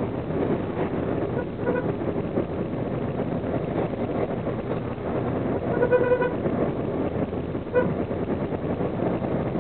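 Steady road and engine noise of a moving vehicle, with a vehicle horn sounding three times: a short beep about one and a half seconds in, a longer honk around six seconds, and another short beep near eight seconds.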